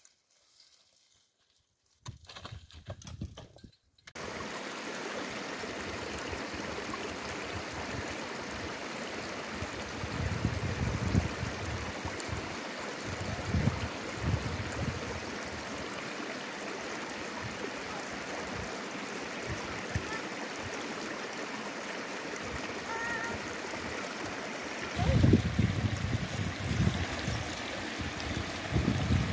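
Steady rushing of running water, like a stream, starting suddenly about four seconds in after near silence. Low bumps and rumbles come now and then, loudest near the end.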